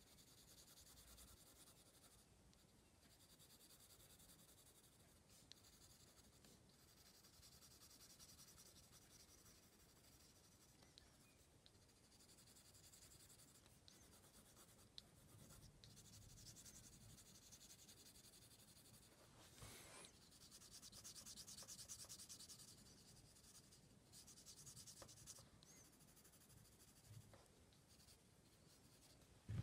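Faint scratching of a graphite pencil drawing on card. A spell of quicker, denser strokes comes about two-thirds of the way in, and there is a short knock at the very end.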